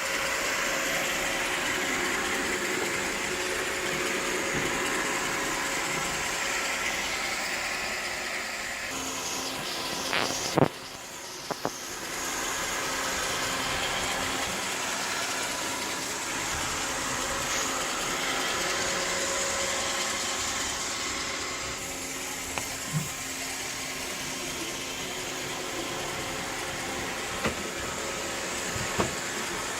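iRobot Roomba 916 robot vacuum running, a steady whirr of its vacuum motor and brushes with a faint hum. A few sharp knocks break in, the loudest a little over ten seconds in, with the running sound dipping briefly right after.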